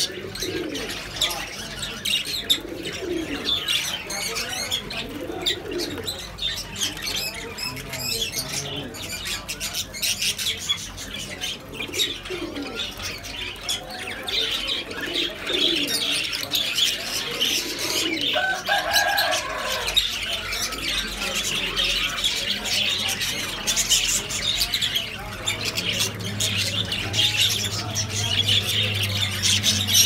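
A large flock of caged budgerigars, with cockatiels among them, chattering and chirping continuously in a dense, high twittering. There are lower repeated calls in the first part, and one longer pitched call a little past halfway.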